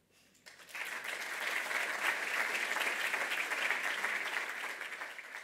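Audience applauding. The clapping starts about half a second in, builds within a second, then holds steady and tails off near the end.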